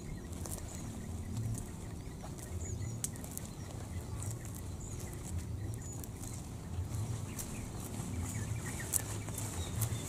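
Faint outdoor ambience: scattered short, high bird chirps, with light clicks and rustles from leaves and a lime stick being handled.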